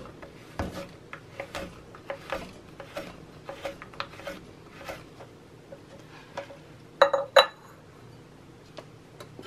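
Chef's knife chopping white chocolate on a cutting board, a quick series of sharp knife strikes. About seven seconds in, a few louder clinks with a ringing tone, from a glass bowl.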